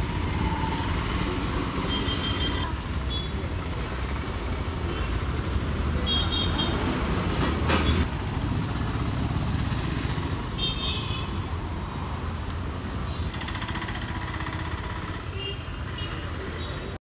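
Busy town-street traffic: auto-rickshaw, scooter and car engines with a bus passing, loudest about halfway through. A few short high horn toots sound now and then.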